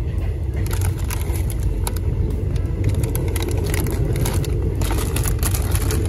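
Steady low rumble of a moving vehicle heard from inside, with frequent sharp clicks and rattles from about half a second in.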